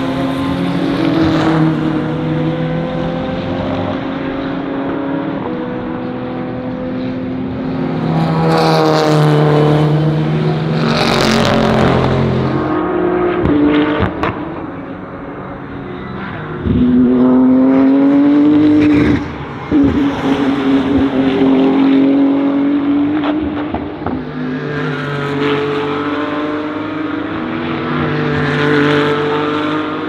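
BMW GT3 race cars at racing speed: the engines rise and fall in pitch through gear changes as the cars pass by, with a few sharp cracks at the shifts.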